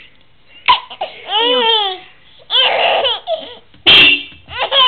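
Baby laughing in several bursts of high, falling-pitched squeals, with a short loud burst near the end.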